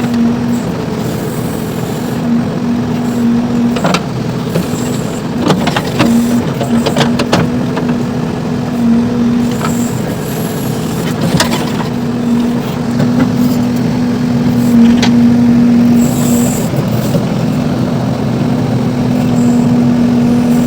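JCB 3DX backhoe loader's diesel engine running steadily at a constant speed, with a scattering of sharp knocks: a single one, then a cluster of several, then two more spaced apart.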